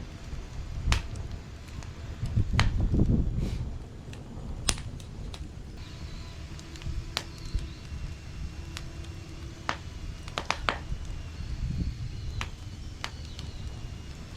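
Wood fire in a fire pit crackling, with a dozen or so sharp pops scattered irregularly, over a low rumble that swells for a couple of seconds about two seconds in.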